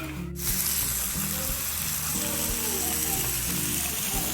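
Pork sizzling on a hot grill plate, a steady hiss that comes in louder about half a second in, with background music.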